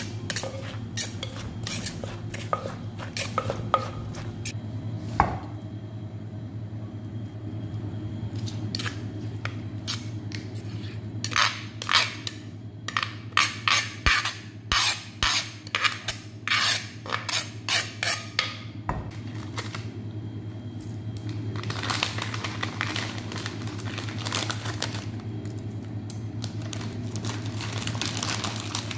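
Kitchen utensils clattering: a wooden pestle and spoon knock and scrape in a mortar as papaya salad is tossed, with a dense run of sharp clinks and knocks in the middle. A long crackly rustle fills the last several seconds, over a steady low hum.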